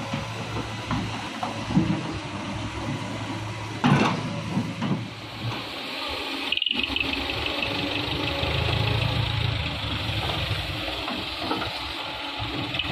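Heavy diesel engines of an excavator and dump truck running steadily, with a sharp knock about four seconds in. A brief cut-out a little past halfway is followed by a steadier engine hum with a hiss over it.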